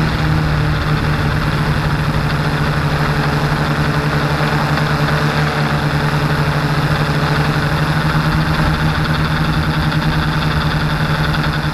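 Multirotor FPV drone's electric motors and propellers buzzing at a steady pitch, with a rush of air noise, as heard from the camera on board the drone.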